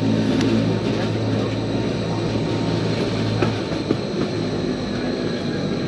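Rigi rack-railway train climbing the steep mountain grade, heard from on board: a steady electric drive hum with a few sharp clicks from the wheels and track. The low hum drops away about three and a half seconds in.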